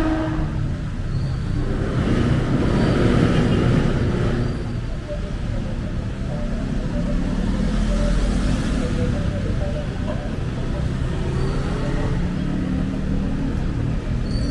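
City road traffic: cars and vans passing, a continuous rumble of engines and tyres that swells as vehicles go by, about two to four seconds in and again around eight seconds.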